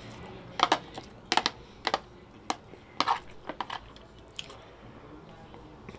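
Close-miked eating sounds: about a dozen sharp clicks and smacks, some in quick pairs, from chewing fried rice and a utensil working in a plastic food container, dying away after the first four and a half seconds.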